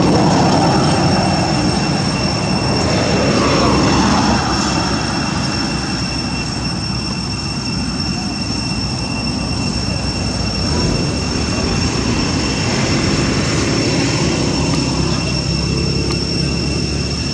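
Roadside traffic: motor scooters running past, louder in the first few seconds, over a steady high-pitched drone.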